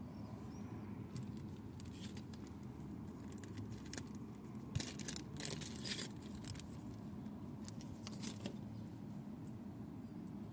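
Small clear plastic zip-lock bag crinkling in the hands as it is handled and opened, loudest about halfway through, with light jingling of small coated-wire paper clips inside. A steady low hum runs underneath.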